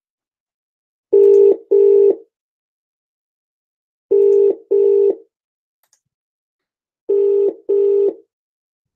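British telephone ringing tone on an outgoing call: three double rings, each a pair of short beeps, about three seconds apart, as the line rings out before being answered.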